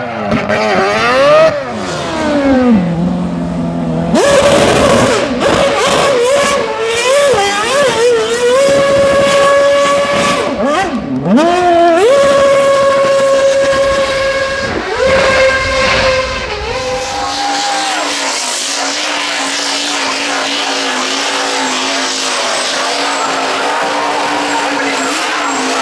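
Racing car engine revving hard, its pitch swinging sharply up and down through gear changes and throttle lifts, with tyres squealing. About 17 seconds in, the sound changes to a steadier, thinner engine note.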